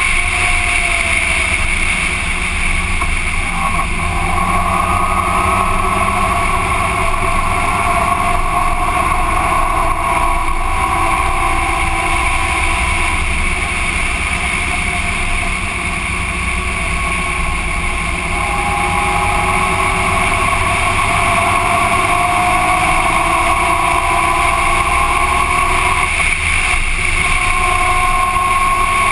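Motorcycle engine running at cruising speed on the move, its pitch drifting gently up and down with the throttle, over a steady rush of road and wind noise.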